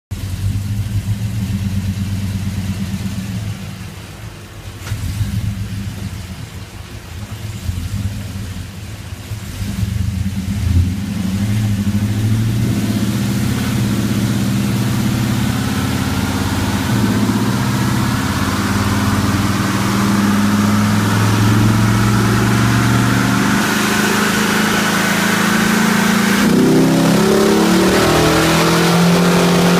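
Chevrolet 6.2-litre V8, fitted with long-tube headers and dual 3-inch Magnaflow exhaust with an X-pipe, running on a chassis dyno. For the first ten seconds it runs lower and uneven. From about 11 s it gets louder and holds under load while a whine climbs steadily in pitch, and its note changes abruptly about 26 s in.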